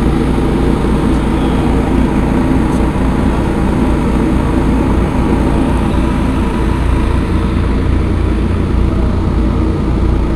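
Car ferry's engines running steadily as the ship gets under way out of harbour: an even, loud low rumble with a steady hum, unbroken throughout.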